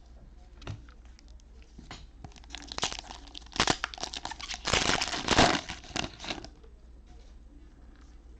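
Cellophane wrapper of a trading-card cello pack being torn open and crinkled by hand, a few seconds of rustling and crackling that is loudest about five seconds in.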